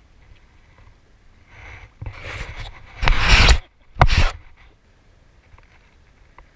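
Cloth rustling and scraping right against the microphone in a few rough bursts, the loudest about three seconds in and a short one about a second later.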